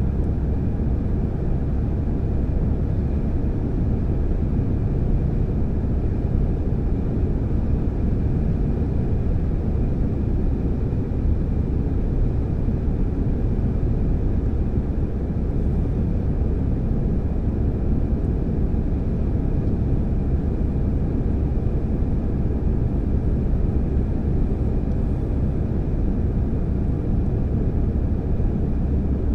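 Steady cabin noise of a car cruising on a motorway: a constant low rumble of tyres and engine that does not change.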